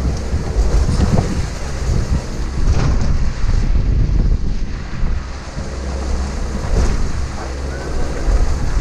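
Wind buffeting the microphone in an uneven low rumble, over the wash of choppy sea against a small boat's hull.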